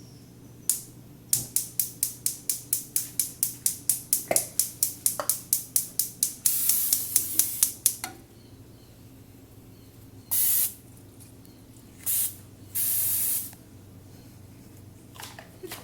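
Cooking oil spray hissing onto a pan in quick short squirts, about four a second for several seconds. Near the end of the run comes one longer spray, then three separate bursts a few seconds later.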